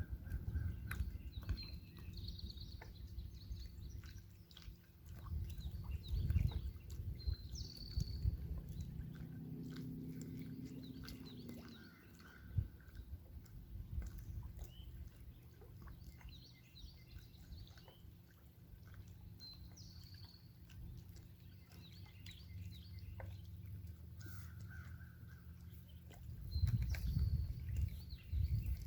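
Birds calling now and then in short high chirps, over a low rumble of wind and handling noise on the microphone.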